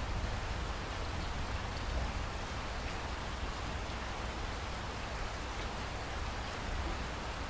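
Steady rain falling, with fine patter of drops and a constant low rumble underneath.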